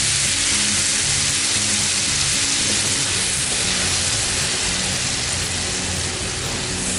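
Tamarind sauce sizzling steadily in a hot frying pan over fried garlic and chili as it is stirred, under background music.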